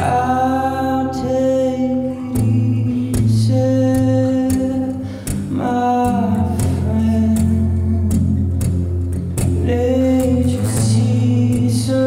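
Live acoustic guitar strummed, with a man singing long held notes over it.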